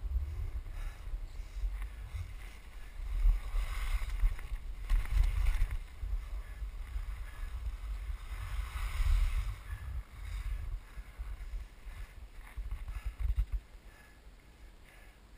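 Wind buffeting the camera microphone during a fast downhill run on snow, with a hissing scrape of edges carving across packed snow that swells twice, about three to six seconds in and again around eight to ten seconds. It quiets toward the end.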